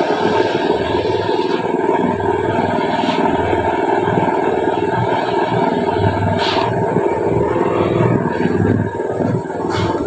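Portable drum concrete mixer running, its small engine droning steadily with a low throb about once a second. A short scraping sound comes every few seconds.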